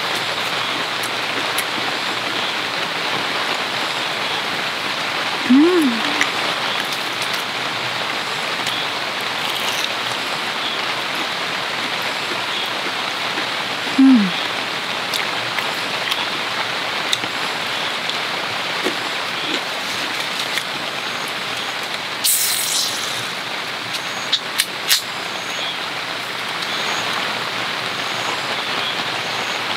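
Steady heavy rain pattering on a tent shelter. A voice gives two short hums early on, and about three quarters of the way through there is a short fizzing hiss followed by a few sharp clicks, as a drink can is opened.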